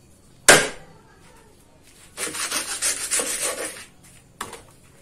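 Kitchen knife cutting through the base of a fresh corn ear on a wooden board. There is one sharp knock about half a second in, then a run of rasping sawing strokes lasting about a second and a half, and a small click near the end. The cut takes off the stalk end so the husks can be pulled off whole for wrapping tamales.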